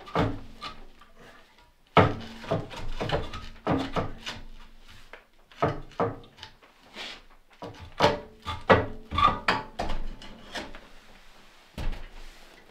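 Door of a rusty steel wood stove being worked back and forth and pulled off its hinges: a run of metal clanks, knocks and scrapes with a few short ringing notes, ending with a single knock near the end.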